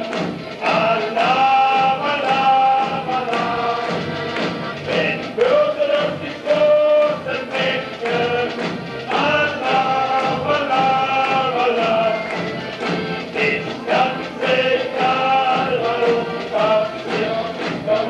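Music: a group of voices singing a melody together over a band with a steady beat.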